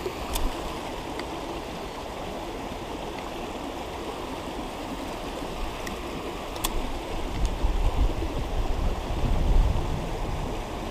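Creek water running steadily over rocks, with a few light clicks and a low rumble in the second half.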